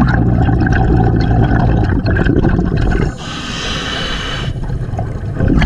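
Scuba diver breathing through a regulator underwater: a long bubbling rumble of exhaled air, then a hiss of inhalation about three seconds in, and a fresh burst of exhaled bubbles near the end.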